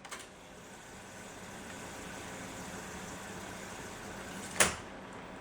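Saturn 202 stereo reel-to-reel tape recorder fast-winding its tape: a steady mechanical whir that slowly builds, with a light click at the start and a sharp click of a transport key about four and a half seconds in. It winds well on worn rubber drive belts that still need replacing.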